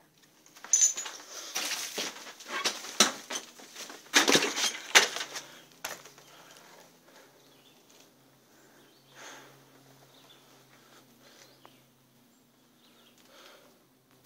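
Rustling, crunching and knocking of someone moving on foot through debris and brush, dense and loud for the first few seconds, then sparse and faint.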